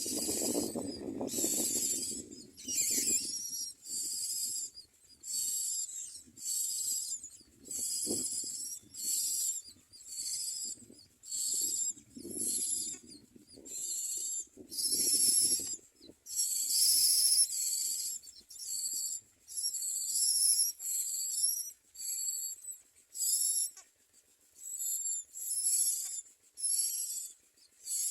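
Common myna nestlings begging, a long series of harsh, hissy calls about once a second while being fed. A low rustle sits under the first few calls.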